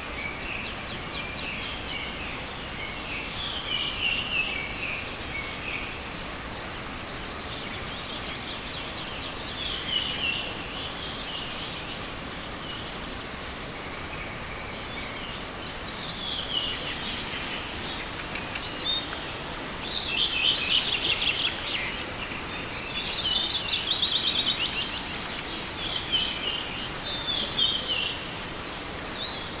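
Songbirds singing in spring woodland: repeated song phrases a couple of seconds long, coming thicker and louder in the second half. Beneath them is a steady rushing hiss, the kind a forest river makes.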